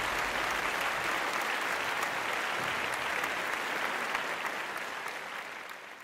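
Arena audience applauding a finished dressage freestyle ride, a dense patter of many hands clapping that fades out near the end.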